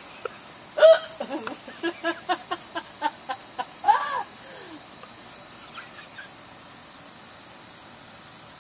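Steady high-pitched insect chorus, in the manner of crickets, running without a break. Over it, in the first four seconds, come a few short sharp sounds, the loudest about a second in and another just before four seconds.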